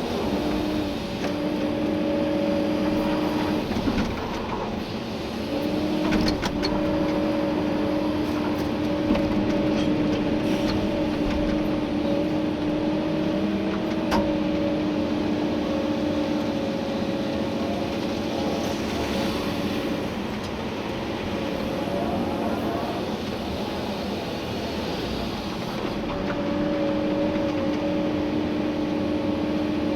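Komatsu PC290-11 excavator's diesel engine and hydraulics running under digging load, heard from inside the cab: a steady whine that breaks off and returns several times over the machine's drone. A few sharp knocks, the loudest about 6 and 14 seconds in, come from the work of the bucket in gravel.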